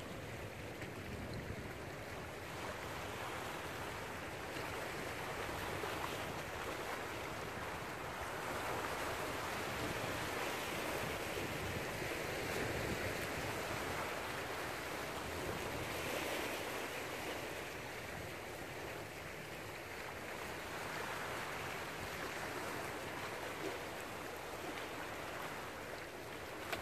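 Small sea waves washing over a rocky shore, a steady rushing wash that swells and eases in slow surges.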